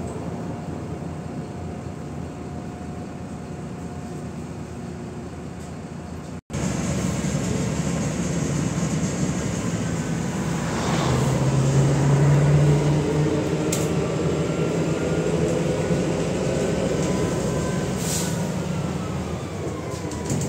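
Interior of a MAZ-105 articulated city bus on the move: engine and drivetrain running under road and tyre noise, with whining tones that rise and fall as the bus speeds up and slows. The sound cuts out for an instant about six seconds in and comes back louder.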